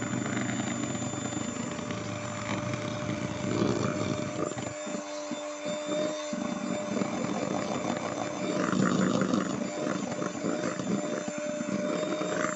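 Electric hand mixer running at its highest speed, its twin beaters whipping eggs and sugar into a thick, pale foam in a stainless steel bowl: a steady motor hum with the churning of the batter.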